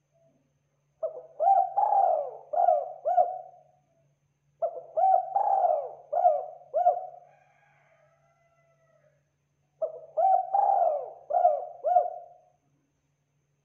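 Spotted dove (tekukur) cooing: three song phrases of several quick, pitched coo notes each, the first about a second in, one midway and one near the end, with short gaps between them.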